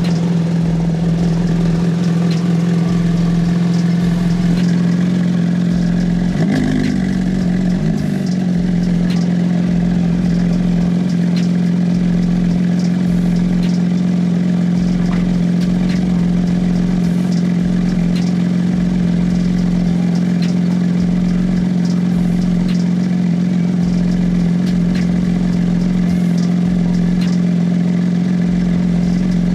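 Porsche 911 GT3's naturally aspirated flat-six engine idling steadily, with a brief waver in its pitch about seven seconds in.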